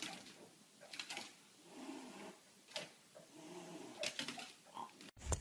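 Faint low growling from a cat and a small dog squaring off, in several short spells, with a few sharp clicks between them.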